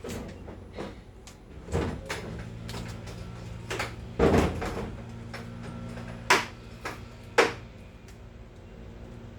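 Several sharp knocks and clunks of metal being handled, the loudest about a third and halfway through and two more close together later, over a steady low electrical hum.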